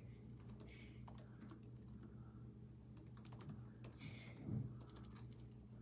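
Faint typing on a computer keyboard: irregular keystroke clicks over a steady low hum.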